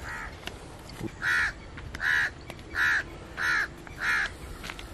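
A crow cawing five times in a steady series, each caw short and harsh, about two-thirds of a second apart.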